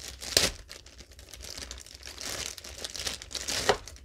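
Thin clear plastic bag crinkling and rustling as it is pulled off a handheld meter, with a sharper crackle about half a second in and another near the end.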